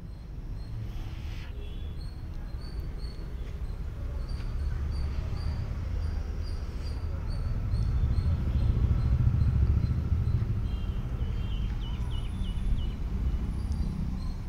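Outdoor ambience: a steady low rumble that swells towards the middle, with a bird chirping in a quick, even series of short high notes through the first half and a few more chirps near the end.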